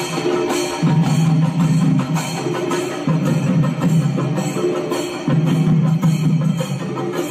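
Background music with a steady percussive beat over a low held bass line.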